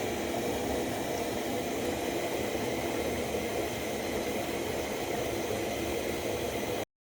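Steady, even hissing noise at a constant level that cuts off suddenly near the end.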